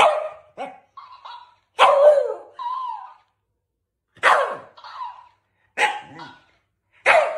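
Shiba Inu barking in short single barks, about five over the stretch, each followed by a softer, shorter sound.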